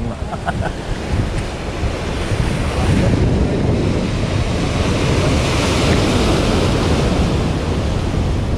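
Sea waves washing and breaking, with wind rumbling on the microphone; the surge grows louder about three seconds in.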